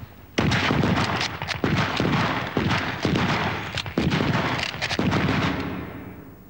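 Rapid gunfire: many shots in quick, overlapping succession, with a short break just after the start, dying away near the end.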